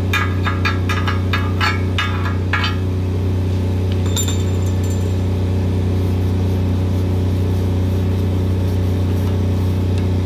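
Chipping hammer striking slag off a fresh weld on a steel column, about three strikes a second for the first few seconds. A single metallic clink with a short ring follows about 4 s in. Under it all, the diesel engine of a Lincoln 305D engine-driven welder runs with a steady low hum.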